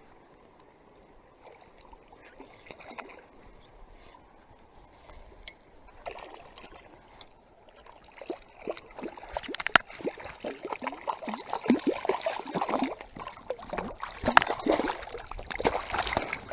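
A hooked brook trout splashing at the water's surface as it is played in. The first few seconds are quiet with a few faint clicks; from about eight seconds in comes a rapid, louder run of splashes that keeps up to the end.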